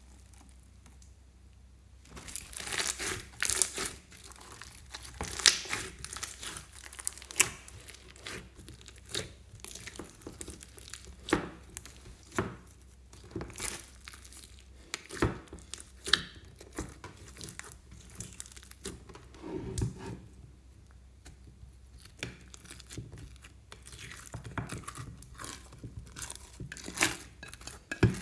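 Hands squeezing, kneading and stretching a large mass of sticky slime mixed with foam beads: irregular sharp pops and clicks as it is pressed and pulled apart, starting about two seconds in after a brief quiet spell.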